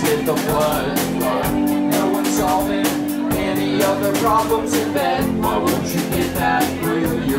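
A live indie rock band playing: electric bass, guitar and drums with a steady cymbal-and-drum beat, and a man singing.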